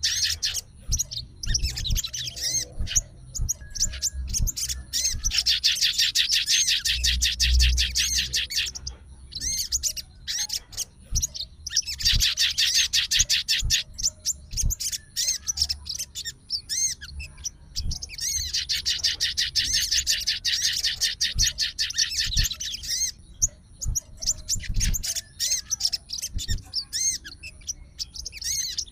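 Sogon songbird singing in long, rapid, high-pitched chattering trills of several seconds each, separated by short pauses, with a few soft low thuds.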